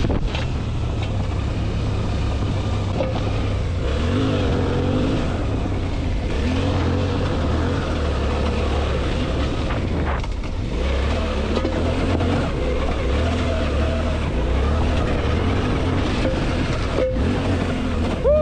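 Suzuki V-Strom 800DE's parallel-twin engine running on a loose off-road descent, its revs rising and falling every second or two with the throttle, over a steady rushing noise.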